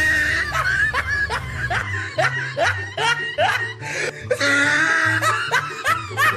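Laughter, a quick run of repeated 'ha' syllables at about three a second, over background music with a steady bass line.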